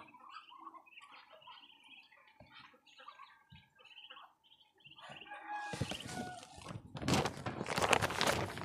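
Young ducklings peeping in short, faint high calls, then rustling and scraping of a woven feed sack, loudest over the last second and a half.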